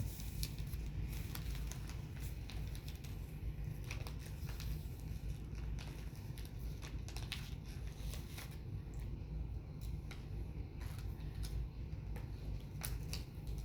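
Steady low hum with scattered light clicks and crinkly rustling throughout.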